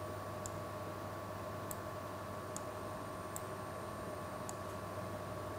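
Quiet room tone with a steady electrical hum and hiss, and faint sharp clicks about once a second from a computer mouse being used to open and scroll a file.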